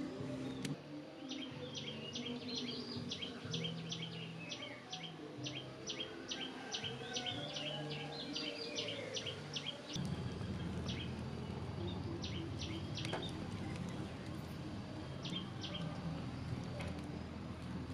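Small birds chirping: quick, high, repeated chirps, several a second, for the first ten seconds, then fewer and farther apart. A steady low background noise grows louder about ten seconds in.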